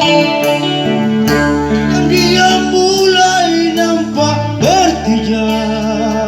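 Band music with guitars over a steady bass line and a wavering melodic lead line above them.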